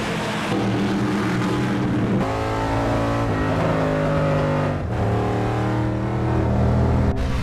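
Race car engines running hard at high revs on a dirt track, heard from inside the car, with the engine pitch jumping to a new level several times.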